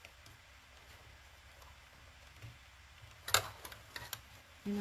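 Quiet room tone, then a sharp click about three seconds in followed by a few lighter ticks as hands shift a stitched fabric basket on a sewing machine's bed.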